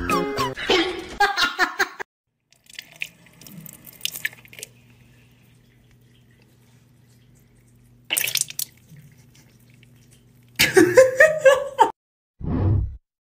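Water running from a tap in short spells, with a sudden loud noisy burst about eight seconds in. Music at the start, then loud sounds and a low thud near the end as the TikTok end card plays.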